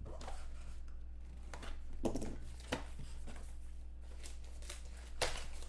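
Cardboard box of 2012 Panini Playbook Football trading cards being opened by hand and its packs handled: a few scattered soft knocks and rustles over a steady low hum.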